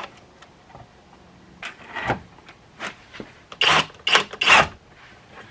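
A few light knocks, then three short bursts of a drill driving a Titen Turbo concrete screw through a board into a concrete block wall.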